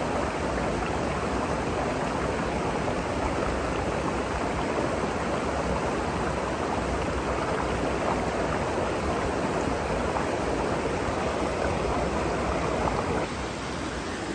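Mountain stream rushing over rocks, a steady even rush of water that turns a little quieter near the end.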